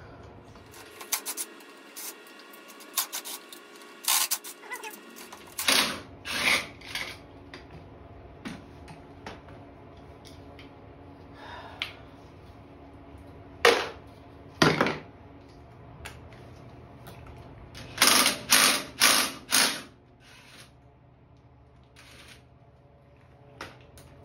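Cordless drill with a socket extension run in short bursts, spinning out 8 mm bolts on a GY6 scooter engine, with metal clinks of tools and parts between the runs. Near the end comes a quick string of four bursts.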